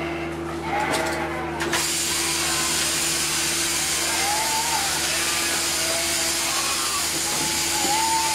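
Electric sheep-shearing machine running with a steady hum while a ewe is shorn; about two seconds in, the handpiece's cutter grows much louder and hisses as it works through the fleece.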